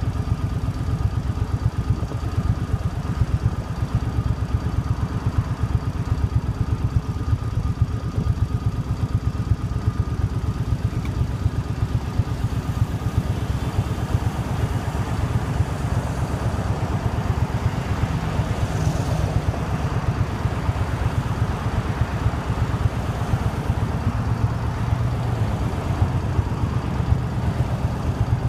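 2005 Suzuki Boulevard C50's 805cc V-twin engine idling steadily while the bike waits at a red light.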